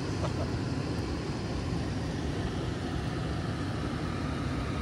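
Steady, even rush of water pouring over falls and rapids.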